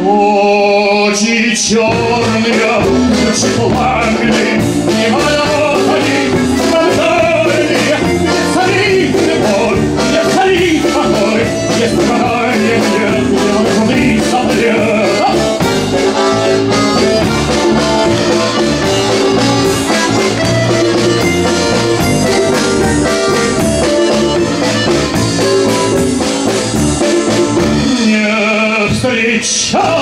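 Band music: an upbeat song with a steady bass line and a regular drum beat, played by a small ensemble.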